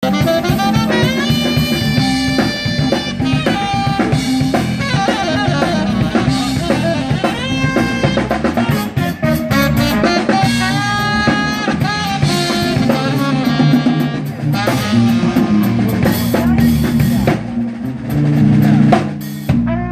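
Live band playing an instrumental funk tune: saxophone lead lines over electric guitar, electric bass and a drum kit with rimshots on the snare.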